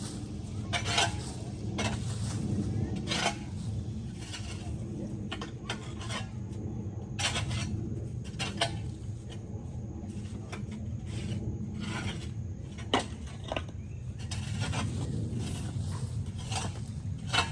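Irregular scraping and clinking of metal, with sharp strokes every second or so over a steady low rumble.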